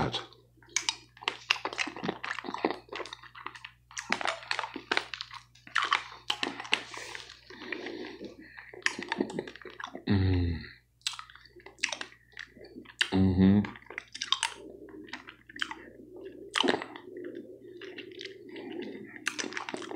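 Close-up mouth sounds of someone sucking on a butterscotch hard candy: many small wet smacks and clicks of the candy against the teeth, with two short hums of enjoyment about ten and thirteen seconds in.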